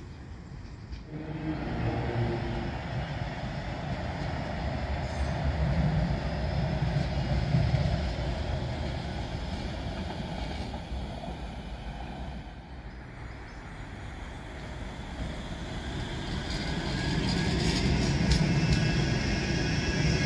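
Bombardier M5000 light-rail tram running on its rails: a steady low rumble of wheels on track. Near the end it grows louder and a high whine comes in as a tram passes close.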